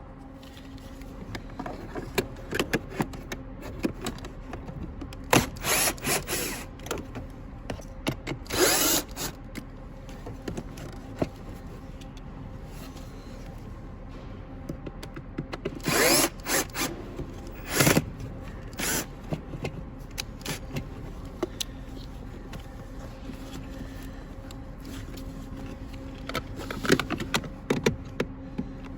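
Power drill-driver running in several short bursts while undoing screws from the blower motor housing, with clicks and knocks of tools and plastic parts being handled between the bursts.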